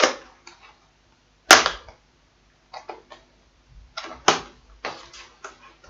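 Rigid clear plastic clamshell packaging being forced open by hand: a series of sharp plastic snaps and cracks, the loudest about a second and a half in.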